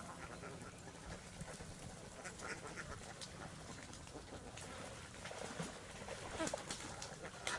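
Domestic ducks giving short, quiet quacks at intervals, with a few louder ones near the end.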